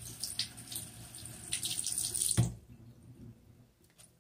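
Bathroom sink faucet running, water splashing over hands and makeup brushes as they are rinsed. A little over halfway through, the water stops with a knock as the tap is shut off.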